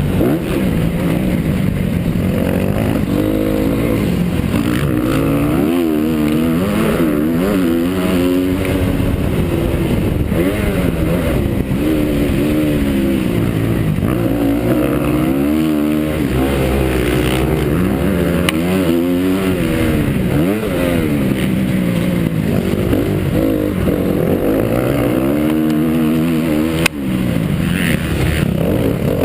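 Honda CRF250 four-stroke motocross bike engine racing, revving up and down over and over as it accelerates, shifts and backs off around the track.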